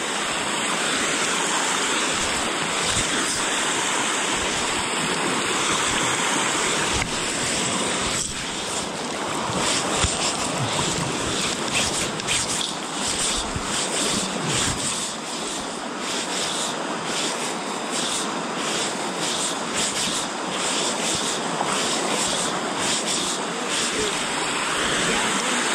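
Wind and small waves lapping at a stony lake shore, a steady rushing noise, with gusts buffeting the microphone more often in the second half.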